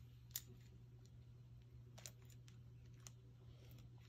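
Faint metallic clicks of a roller timing chain being handled and fitted onto the VVT cam sprocket of an Audi 2.0T engine, with a few separate ticks over a low steady hum. The sharpest tick comes early, and softer ones follow about two and three seconds in.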